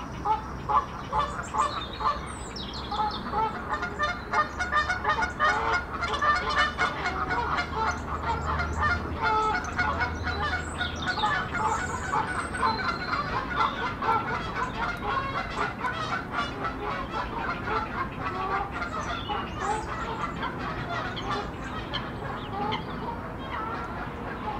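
Many waterfowl calling at once in a dense, unbroken stream of short overlapping calls, with small birds chirping higher above them.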